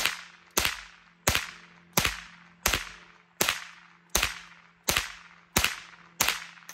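Winchester Wildcat .22LR semi-automatic rifle firing Fiocchi 40-grain copper-plated round-nose rounds unsuppressed: about ten sharp shots at an even pace, roughly seven-tenths of a second apart. The string stops near the end as the 25-round magazine runs empty.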